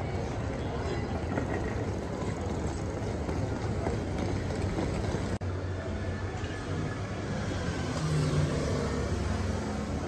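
Street noise with a motor vehicle's engine running close by, a steady low hum.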